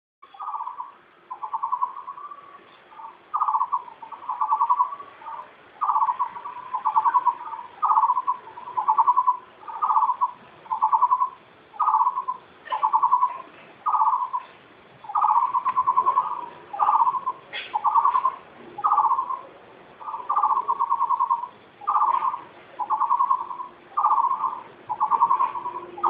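A bird calling over and over in a steady rhythm: a short, rapidly pulsed note repeated about once a second.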